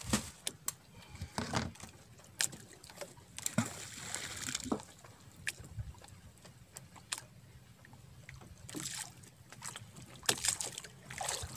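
Water sloshing and slapping against the hull of a small fishing boat, with scattered sharp knocks and clicks and a low steady rumble underneath.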